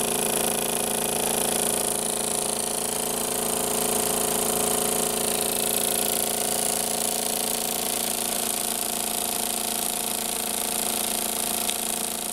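Jensen No. 35 model steam engine running steadily under load, driving two small generators. It makes a steady mechanical whirr of several even tones under a constant high hiss.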